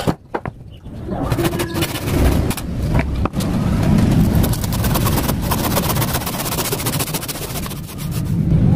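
Carl Schlieper Tjap Mata hand saw cutting through a clamped block of wood, its teeth rasping through the grain in quick strokes. It starts about a second in.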